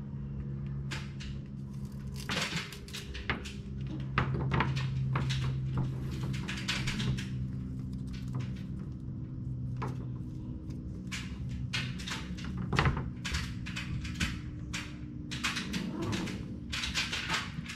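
Handling noise from a solar panel and its cable being coiled and then the panel flipped over: a string of scrapes, taps and knocks over a steady low hum.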